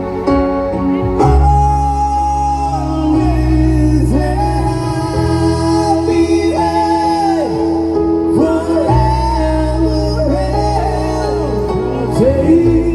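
A band playing a slow, tender song with a singer: held bass notes changing every few seconds under a gliding sung melody.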